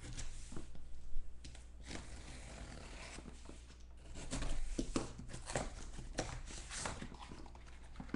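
A sealed cardboard case of trading-card boxes being opened: irregular tearing, scraping and crackling of cardboard and tape, with scattered sharp clicks.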